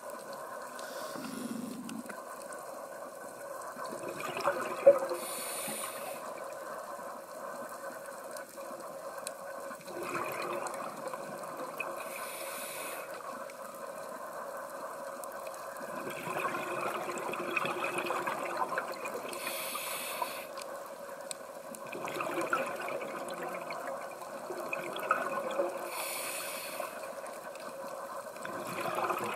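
Scuba diver breathing through a regulator underwater: a short hiss on each inhale and a gush of rumbling exhaust bubbles on each exhale, repeating about every six to seven seconds. One sharp click about five seconds in.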